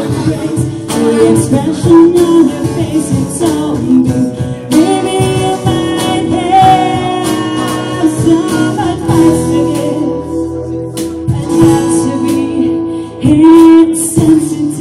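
A woman singing live with long held notes over an acoustic guitar.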